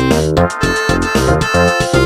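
A Samsung SCH-X730 ringtone played as a MIDI file through the MidRadio synthesizer: a bright, many-voiced synthesized melody in short notes over a pulsing bass line, with a steady beat.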